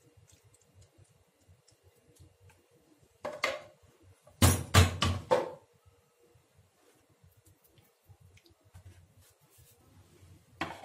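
Clatter of kitchenware: a knock about three seconds in, then a quick run of several loud knocks and scrapes a second later, and one more knock near the end.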